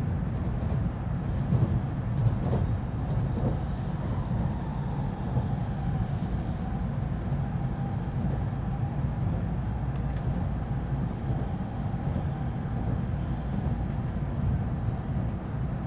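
Steady low rumble of an N700A Shinkansen running at speed, heard inside the passenger car, with a faint whine through the middle.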